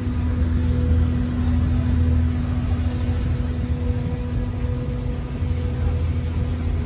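The SS Moyie sternwheeler's engine running steadily under way: a low rumble with a constant hum.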